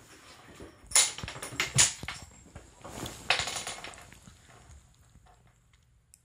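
A cat batting a silvervine stick around on a wooden floor: quick clattering knocks and scrabbling, in two bursts, the first about a second in and the second about three seconds in.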